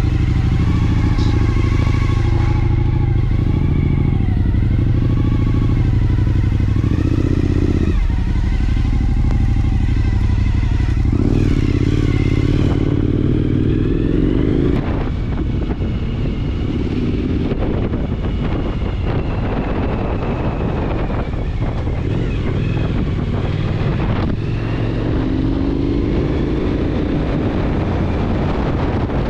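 Suzuki V-Strom 1000's V-twin engine running as the motorcycle is ridden, its pitch rising and falling several times with throttle and gear changes. About halfway through the note turns rougher and a little quieter.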